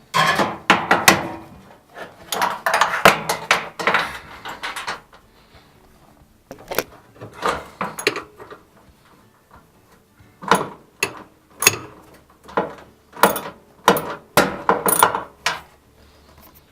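Bursts of sharp metal clanks and knocks from a wrench and tools working on the shock absorber bolts inside a washing machine's cabinet. The knocks come in four clusters with short pauses between them.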